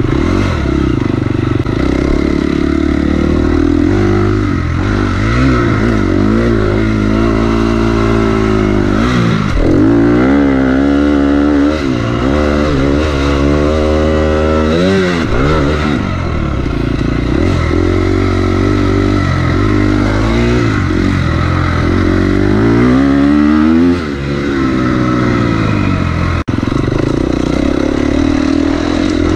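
KTM 250 XC-F dirt bike's single-cylinder four-stroke engine under race load, revving hard, its pitch climbing and dropping again and again as the throttle is opened and closed.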